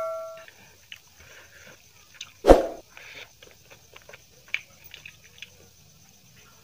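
Close-up mouth sounds of someone eating chicken biryani by hand: wet chewing, lip smacks and small clicks. About two and a half seconds in there is one louder smack. At the start, the ring of a bell chime sound effect dies away.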